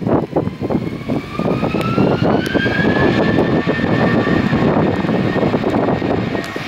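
Twin-engine jet airliner's engines spooling up, a whine rising in pitch and then holding steady over a heavy rumble, as for a takeoff roll. Wind buffets the microphone throughout.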